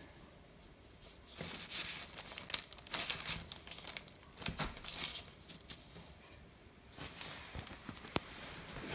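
Soft rustling and small clicks as hands and a modelling tool work a piece of clay on paper, in scattered short bursts.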